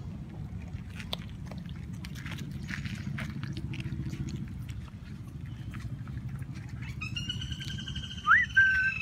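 Puppies eating boiled rice from a steel bowl, making scattered soft clicks and smacks of chewing and muzzles in the bowl. Near the end a high-pitched drawn-out tone is followed by a loud, quick rising squeal.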